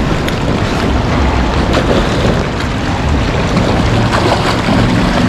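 Steady rush of pouring rain and flowing river water, with wind buffeting the microphone in low rumbles.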